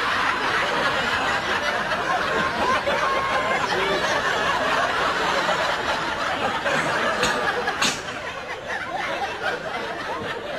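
Many voices at once in a dense, steady din, with snickering and chuckling laughter; it drops in level about eight seconds in, just after two short clicks.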